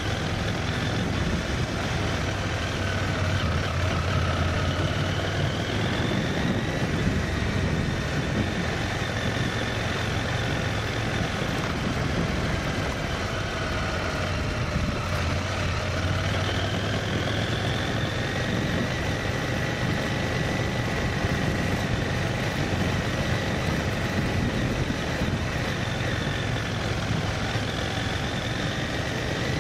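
A vehicle's engine running on the move, a steady low drone with higher whining tones that slowly rise and fall in pitch, over a constant rush of road noise.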